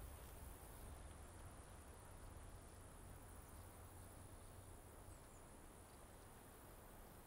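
Near silence: faint outdoor field ambience, a low rumble under a thin, steady high-pitched hiss.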